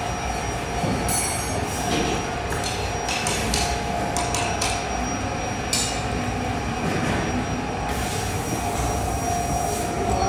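Steady foundry din during a pour of molten metal into sand moulds: a constant machine drone with a steady hum, broken by scattered short clinks and crackles.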